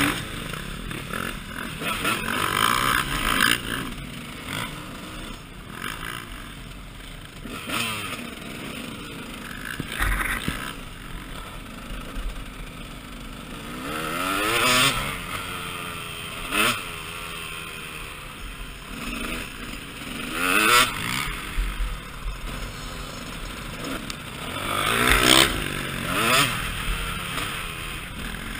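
KTM 200 EXC two-stroke dirt bike engine being ridden off-road, its pitch rising and falling with the throttle in several swells, over a rough, rattling noise from the ride.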